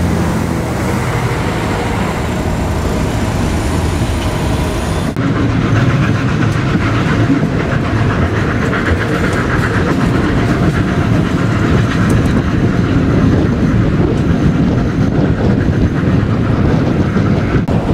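Zillertalbahn narrow-gauge train noise: a red railcar running close by, then, after a cut about five seconds in, the louder steady rumble of a moving carriage of the steam-hauled train, its wheels rolling on the rails.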